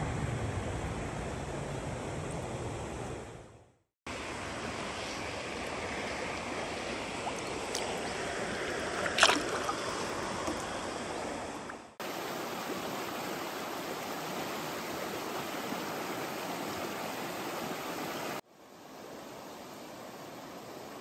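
Rushing stream water flowing over shallow rapids, a steady rush that stops briefly about four seconds in and changes level twice. A single sudden sharp sound stands out about nine seconds in.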